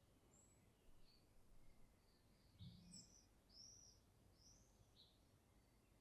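Faint birdsong outdoors: a series of short, high, arching chirps, about one every half second to second. A soft low thump comes a little before the middle.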